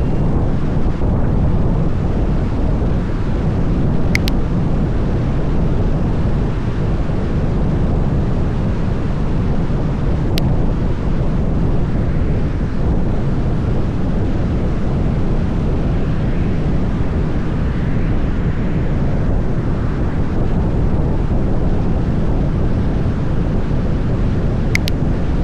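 Wind buffeting an outdoor microphone: a steady, dense low rumble throughout, with a few faint brief clicks.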